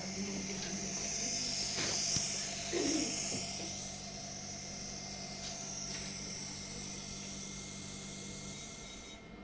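A small machine running with a steady high-pitched whir and hiss over a low hum, cutting off suddenly near the end.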